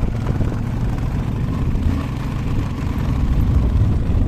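Motorcycle running as it is ridden slowly over a rough, stony dirt road, heard as a steady low rumble.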